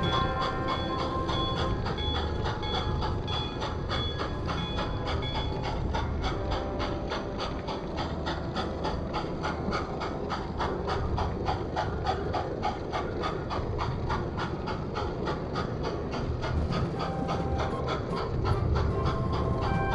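Large-scale model steam train running along its track, with a fast, even clicking and a low rumble.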